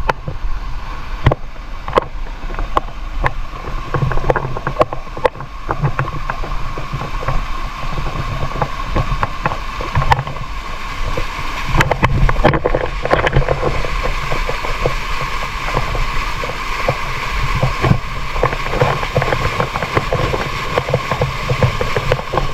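Waterfall-pool water rushing and splashing close to the microphone, with many irregular small splashes and knocks and some wind buffeting.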